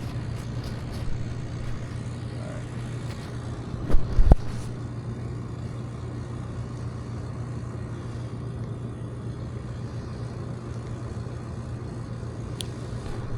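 Steady low hum of a running air-conditioning condensing unit, with two sharp knocks close together about four seconds in.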